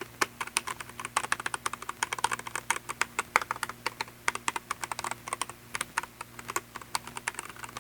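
Fast typing on a mechanical keyboard with red linear switches, close up: a quick, irregular run of key clacks, several a second, without the click of tactile blue switches.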